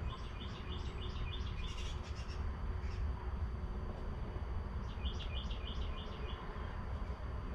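A bird singing: two runs of quick repeated chirps, about four a second, over a steady low rumble.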